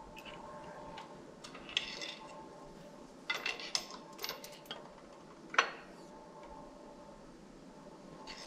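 Metal tools and engine parts being handled, giving light clinks and clanks in a few short clusters, with one sharper clank about five and a half seconds in. A faint steady hum runs underneath.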